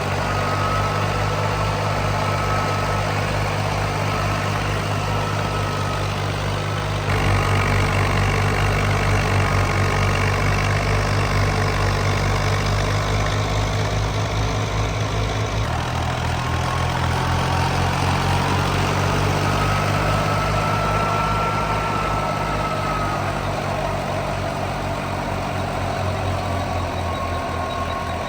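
Massey Ferguson 385 tractor's four-cylinder diesel engine running steadily while driving a mustard thresher, with a higher whine that rises and falls over it. The sound grows louder about seven seconds in and settles back around sixteen seconds.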